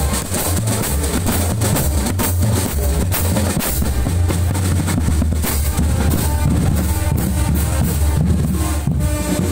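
Marching drum band playing: bass drums and snare drums beating a dense, driving rhythm.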